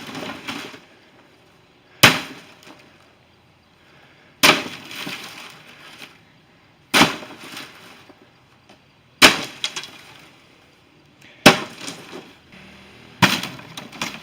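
Hard blows knocking something apart, six strikes about two seconds apart, each sharp hit followed by about a second of rattling, breaking debris.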